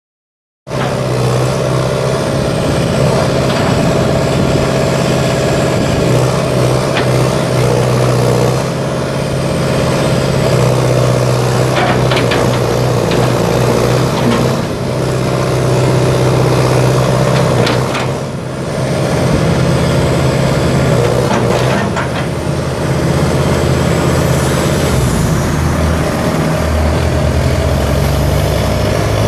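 A John Deere 490E excavator's four-cylinder turbo diesel engine running steadily while its boom and bucket are worked. The engine sound comes in just under a second in, dips briefly twice, and is joined by a few sharp knocks.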